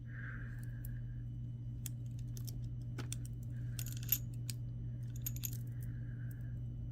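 Small metal charms and beads of a necklace clinking and jingling against each other as they are handled, in several short clusters of light metallic clicks.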